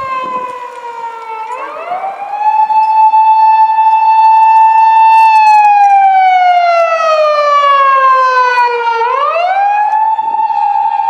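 Japanese police patrol car's siren sounding a slow wail. The pitch slides down, rises about two seconds in and holds high, slides down again over several seconds, then rises and holds high again near the end. It grows louder about two seconds in.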